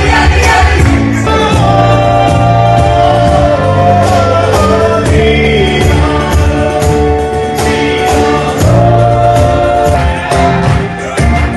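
Live band music: voices singing a melody over a steady drum beat and bass.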